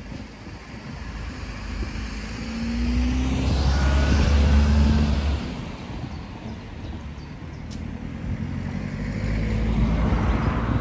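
Cars driving past close by on the road: one car's engine and tyre noise rises to a peak about four seconds in and fades away, and a second car comes by near the end.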